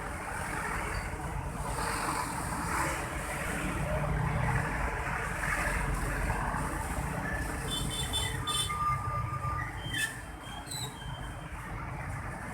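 Road traffic: a steady low rumble of passing vehicles, with a few short high squeaks about two-thirds of the way in.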